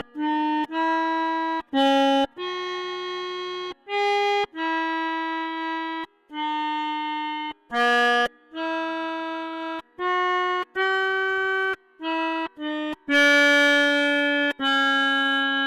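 Basuri V3 telolet bus horn playing a tune: a string of held notes at changing pitches, some short and some over a second long, each starting and stopping sharply with brief gaps between.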